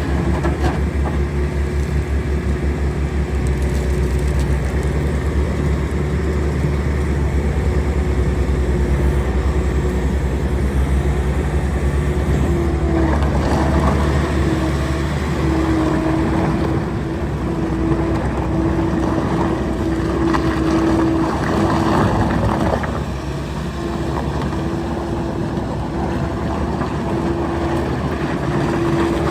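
Bobcat S76 skid steer loader's diesel engine running steadily, with a sustained whine over the low engine rumble.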